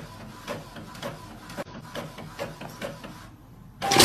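Inkjet printer printing, its print head shuttling back and forth with a regular run of clicks as the paper feeds through. Near the end a sudden loud burst of noise cuts in over it.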